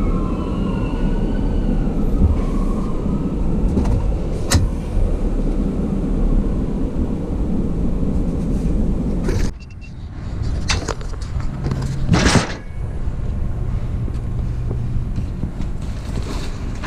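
Vehicle engine running at idle, a steady low rumble, with a few sharp knocks; the sound dips briefly about nine and a half seconds in, and a louder knock comes about twelve seconds in.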